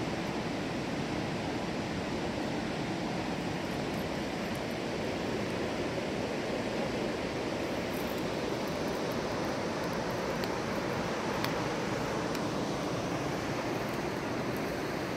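Fast river rushing over rocks below, a steady, even noise of running white water.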